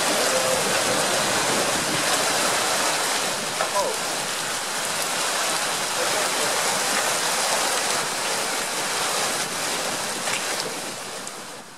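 Heavy, wind-driven thunderstorm rain, a dense steady hiss that fades away near the end.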